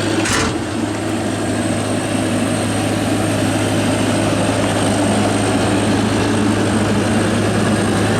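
2002 Bobcat 337D midi excavator's diesel engine idling with a steady drone, with one brief click just after the start.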